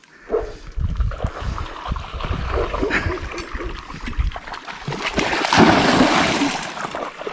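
River water splashing and sloshing, with a louder splash about five and a half seconds in.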